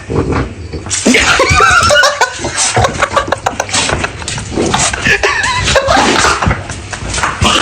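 A person laughing hard and continuously, in wavering pitched bursts with gasps in between.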